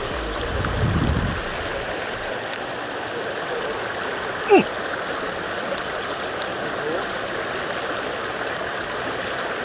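Shallow stream running over pebbles and rocks in a steady rush, with a short low rumble about a second in and a brief sound falling in pitch about four and a half seconds in.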